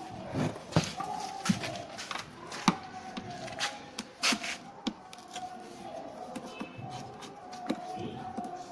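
Irregular clicks and knocks of hands and tools working on a plastic car air-conditioner evaporator casing, with a faint wavering tone in the background.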